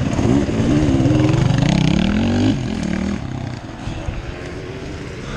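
Off-road race motorcycle engine revving: its pitch wavers up and down and climbs for the first two and a half seconds, then drops back to a lower, quieter run.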